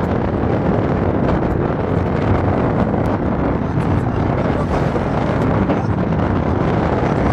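Wind buffeting the microphone of a phone held out of a moving car's window, a loud, steady rush over the car's road and tyre noise.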